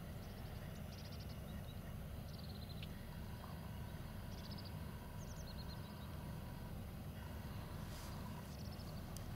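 Steady low drone of a towboat's engine hauling a barge along the river. Over it, a small bird gives quick runs of short, high chirps several times.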